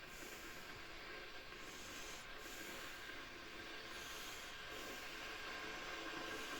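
Grundig electric kettle heating water, a steady hiss that slowly grows louder as the water warms toward the boil.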